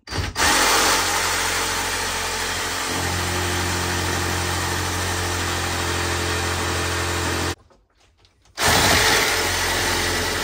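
Evolution R150RCP-Li 18V cordless reciprocating saw cutting into a hardwood pallet joint to sever the nails. It runs steadily, stops for about a second, then starts again. The user thinks the blade was going into the very hard wood rather than just through the nails.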